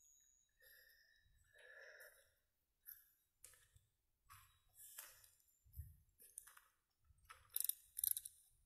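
Faint footsteps on a path: irregular scuffs and clicks about every half second that grow louder near the end. A faint breathy sound comes in the first two seconds.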